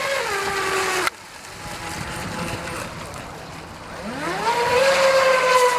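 RC carbon-fibre catamaran racing boat's motor whining at speed. The pitch drops and the sound cuts off suddenly about a second in; after a quieter stretch of water and wind noise, the whine rises again near the end and holds steady.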